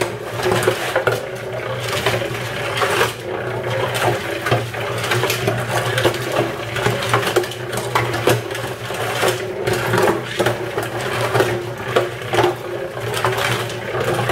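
Cement mixer running, its motor humming steadily while bricks and an olive tree tumble in the drum, knocking and clattering against it at irregular intervals.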